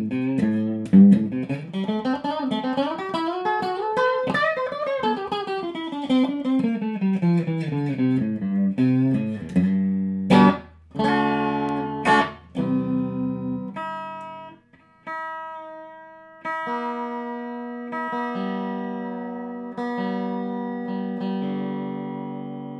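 Fender Sixty-Six electric guitar played clean through an amp with a bright, spanky tone. Fast single-note runs sweep down and up in pitch for the first several seconds, followed by a couple of sharp strummed chords. After that come chords left to ring and fade, a new one every second or two.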